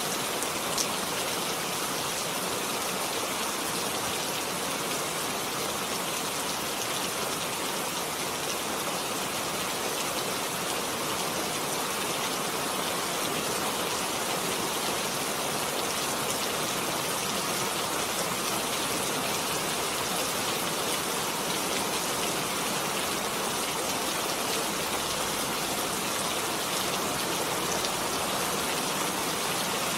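Heavy rain falling steadily, a dense even hiss of drops with faint individual drop ticks and one small click about a second in.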